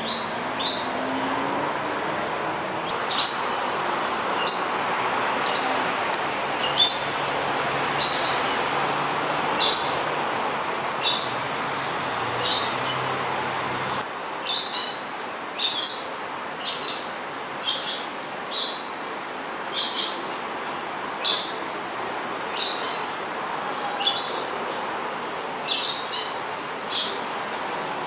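Coconut lorikeet calling: a long series of short, high-pitched calls, roughly one every second, over a steady background hum.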